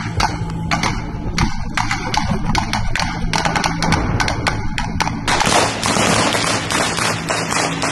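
Irregular knocks and taps of camera handling noise over a steady low hum. About five seconds in, a loud rushing noise sets in and keeps going.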